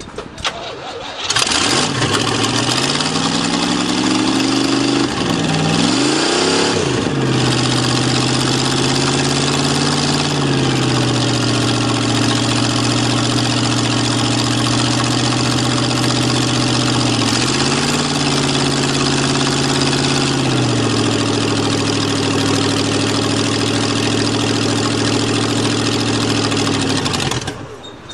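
305 small-block Chevy V8 in a 1963 Allis-Chalmers front end loader cold-starting after sitting all winter, running only on fuel primed into the carburetor. It fires about a second in and runs loudly, its speed rising and falling a few times, then stops near the end.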